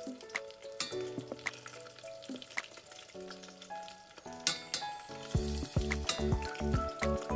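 Lumpia sizzling as they fry in hot oil in a stainless steel pot, with sharp clicks of metal tongs against the pot as the rolls are turned. Background music plays over it, and a strong beat with bass comes in about five seconds in.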